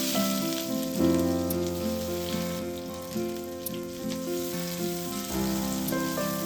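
Food sizzling steadily in a hot pan, heard as an even hiss, under soft instrumental background music.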